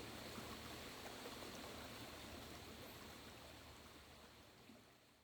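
Near silence: faint steady room tone with a low hum, fading out toward the end.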